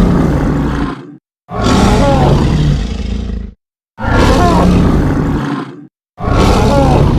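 Made-up monster roar sound effect for the Green Shark cryptid: a loud roar about two seconds long, repeated over and over with short silent gaps between each.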